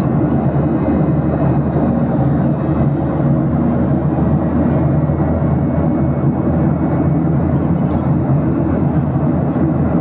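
Airplane noise: a steady, unchanging low drone with a faint hum in it.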